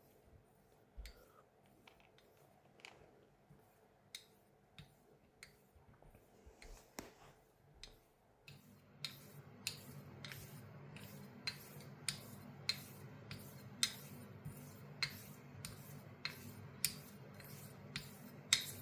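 Steel straight razor being honed by hand on a natural whetstone with slurry: faint strokes, each marked by a sharp tick of the blade on the stone. The ticks are sparse at first and come steadily and faster after about eight seconds. A low steady hum starts at the same point.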